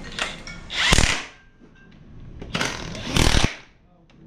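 A cordless impact wrench hammering on a bolt of a Honda engine's transmission case in two bursts, a short one about a second in and a longer one near the end.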